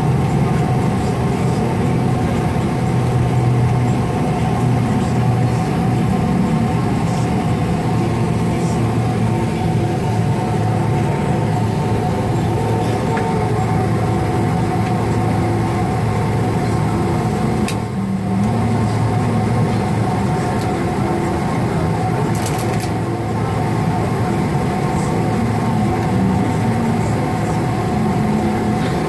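Jet airliner's engines running at taxi idle, heard from inside the cabin: a steady hum with a few constant whining tones. There is a brief click about two-thirds of the way through.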